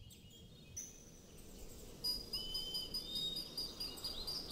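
Birds singing and chirping: thin high whistled notes and short chirps over a faint steady background hiss, louder from about two seconds in.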